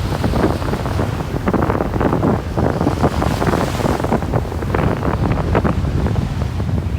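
Strong storm wind buffeting the microphone in a loud, uneven rumble, with surf behind it.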